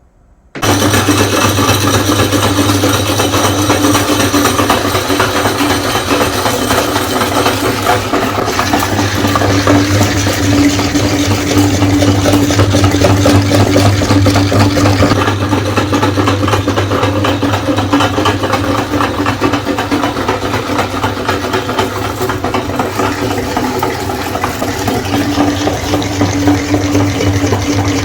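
Electric meat grinder switched on about half a second in, its motor then running with a steady loud hum.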